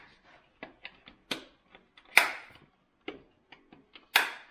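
The air filter housing cap on a Can-Am Maverick R is pressed and clicked into place by hand. There are light irregular clicks and taps, with louder sharp clicks about a second in, around two seconds in, and near the end.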